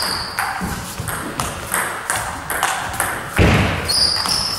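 Table tennis rally: the ball clicking back and forth off the bats and the table every few tenths of a second, with one much louder hit about three and a half seconds in.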